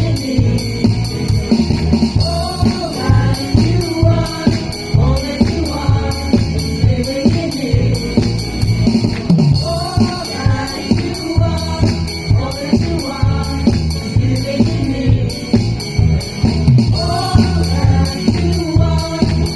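Voices singing a worship song with a live band: strong bass and a steady beat of bright percussion strokes.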